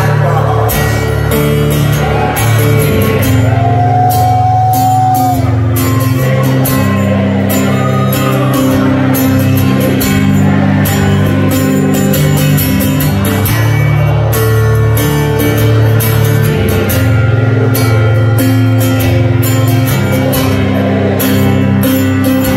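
Live rock band music: a strummed acoustic-electric guitar over steady bass and held chords, with a male voice singing in places.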